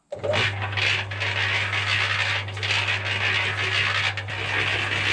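Rented electric concrete mixer running, its motor humming steadily under a scraping, rattling noise from the turning drum, which has some play in it. The sound starts abruptly just after the beginning.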